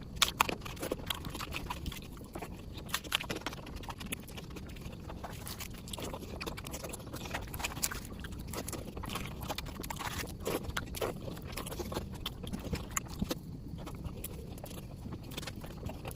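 Close-miked chewing of rice and egg curry: wet mouth clicks and smacks at an irregular pace over a low steady background noise.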